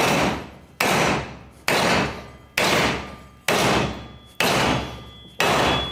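A 1-kilo hammer striking an AlSi-welded, anodized aluminium extrusion profile clamped in a vise, to test the strength of the weld. There are seven blows, about one a second, each with a short metallic ring.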